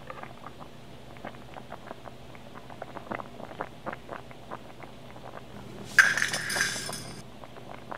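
Water heating in a stainless steel saucepan on a stove, ticking and popping irregularly as bubbles form. About six seconds in comes a loud rush of noise lasting about a second as a bundle of dry spaghetti is pushed into the pot.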